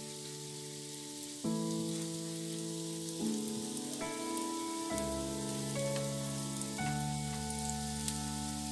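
Background music of sustained chords that change every second or two, over a steady sizzle of hot oil in an appe pan as baati dough balls are set into its cups.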